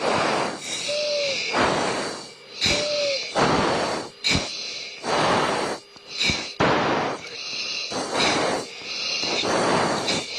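Heavy, rapid breathing into an F-16 pilot's oxygen-mask microphone, heard over the intercom: about ten forceful rushing breaths, roughly one a second. This is typical of a crew member straining against high G.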